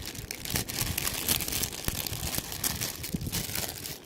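Plastic packaging crinkling and rustling as it is handled, an irregular run of crackles that stops abruptly at the end.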